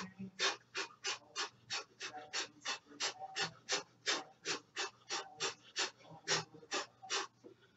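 Rapid, sharp breaths, about three a second, from a person throwing fast punches at the air during a cardio workout. A faint steady low hum runs underneath.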